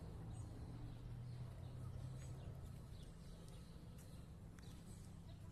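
Park ambience: a steady low rumble with faint, short bird chirps scattered over it.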